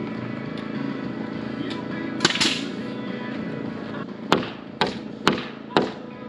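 Background music, with a sharp knock about two seconds in, then four hammer blows about half a second apart near the end, typical of nailing framing lumber.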